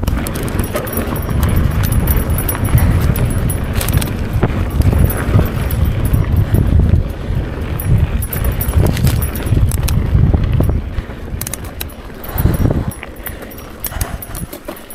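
Mountain bike rolling down a dirt singletrack: a gusting rumble of wind on the microphone, with the bike clicking and rattling over bumps in the trail. The rumble dies down about eleven seconds in, leaving quieter rattles.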